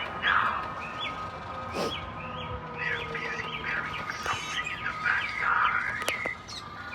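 Small birds chirping, many short quick calls overlapping, with a faint steady tone beneath.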